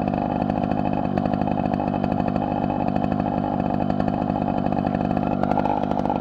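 A Riga moped's small two-stroke engine idling steadily, with a fast even putter.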